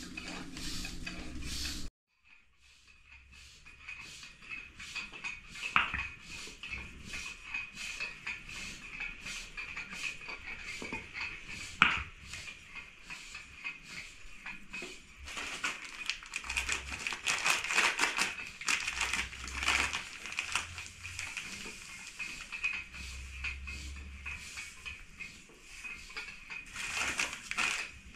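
Hands sifting, then mixing and scraping flour in a large metal basin: irregular rustling and scraping with a couple of sharp clinks against the metal. A faint steady high tone runs underneath.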